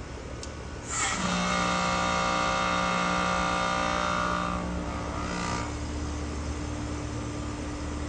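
Heat pump outdoor unit on its defrost cycle: about a second in, a sudden loud rush of hissing refrigerant with a whine, as the reversing valve shifts, fading out after about four and a half seconds and leaving the unit's steady low hum.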